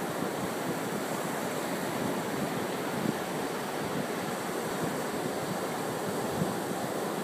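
Ocean surf breaking and washing up a sandy beach: a steady wash of waves.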